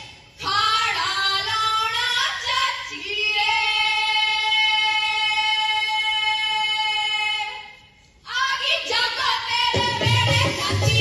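Punjabi folk song for the jaggo dance: a solo singing voice with no drums, ending in one long held note of about four seconds. After a brief pause about eight seconds in, the drum-backed music comes back in.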